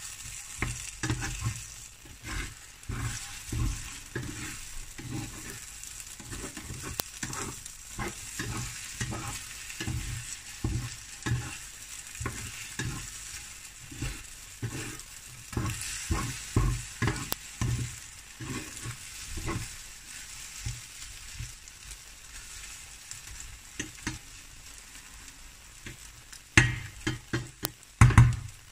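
Plastic slotted spatula stirring and scraping scrambling eggs in a nonstick frying pan while the fat sizzles steadily, the spatula strokes coming two or three a second. A few louder knocks come near the end.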